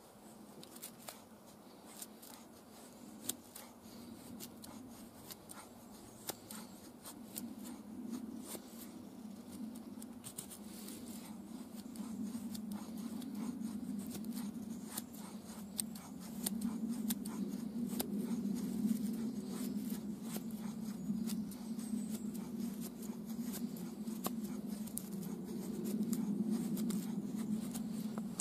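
Fallkniven Idun knife shaving thin curls down a wooden stick to make a feather stick: a long run of short, dry scrapes and clicks. A low rumble in the background grows louder from about a third of the way in.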